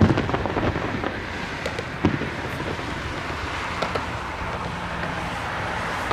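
Fireworks going off: a sharp bang at the start and another about two seconds in, with a few lighter pops, over a steady outdoor hiss. A faint steady low hum comes in about halfway through.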